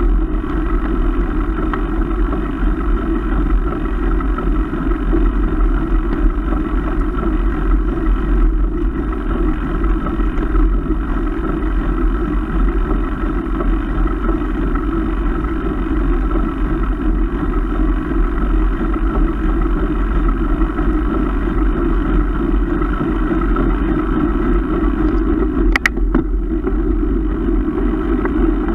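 Steady low wind and road noise picked up by a bike-mounted action camera as a mountain bike climbs a paved road, with one sharp click near the end.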